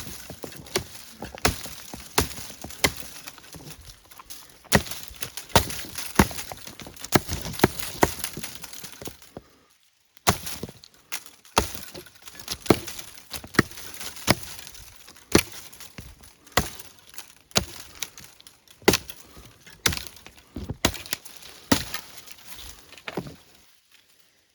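Large fixed-blade bushcraft knife with a CPM-3V steel blade chopping wood: a steady run of sharp chopping strikes, one to two a second, with a brief pause about ten seconds in.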